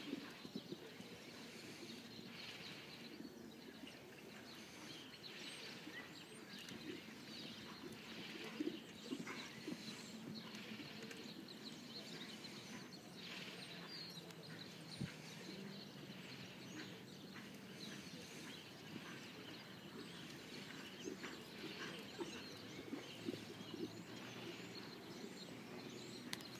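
Faint outdoor background with birds chirping and the soft, distant hoofbeats of a horse cantering on a sand arena.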